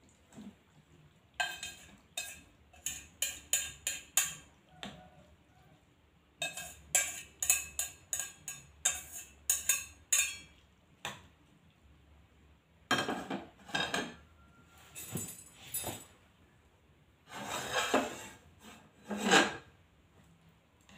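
Chopsticks clinking and scraping against a metal saucepan as fried instant noodles are stirred and scooped out. The sound comes in runs of quick clicks with pauses between, and there is longer, louder scraping near the end.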